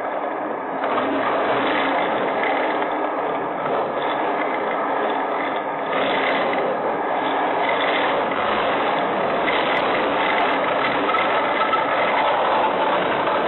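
Strong wind and rain heard through a security camera's microphone: a loud, steady rushing noise with a rough, rattling grain.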